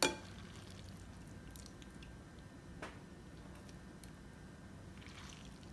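Plastic tongs handling cooked fettuccine in a glass baking dish: faint soft squishing of the noodles, with a sharp click right at the start and a lighter one about three seconds in.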